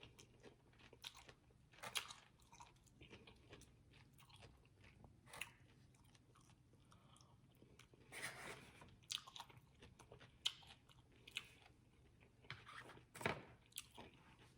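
A person chewing food close to the microphone: faint, irregular mouth clicks and soft crunches, a little louder about two seconds in, around eight seconds in and near the end.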